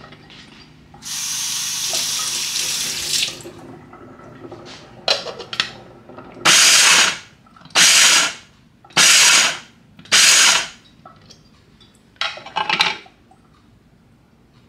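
Hamilton Beach electric food chopper pulsed in short runs, its motor and blade whirring as it chops sweet peppers: four runs of about a second each and a few shorter blips. Earlier comes a steady rushing noise of about two seconds.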